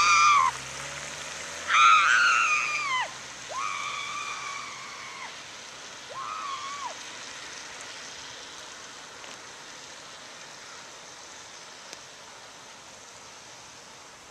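Boys yelling from a blue Honda Fit as it drives off down a wet road: four long, high-pitched yells, each dropping in pitch at its end and fainter than the last as the car pulls away, with the car's engine heard in the first few seconds. After that only a steady hiss of rain remains.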